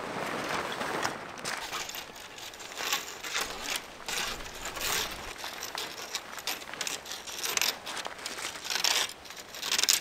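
Camping gear being handled: irregular rustling and crinkling with light clinks.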